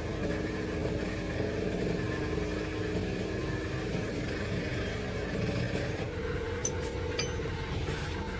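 An engine running steadily, with a few light clicks about two-thirds of the way in.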